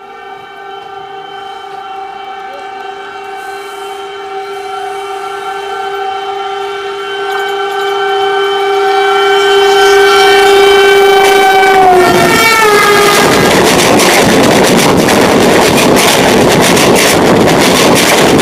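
Indian Railways locomotive horn sounding one long, steady blast that grows louder as the train approaches, then drops in pitch as the locomotive passes close by. After that comes the loud rushing and rattle of its coaches speeding past on the adjacent track.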